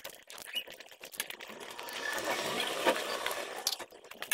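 Fingers squishing and mixing cooked rice with curry on a metal plate: many small wet clicks, thickening into a longer stretch of louder rubbing about halfway through.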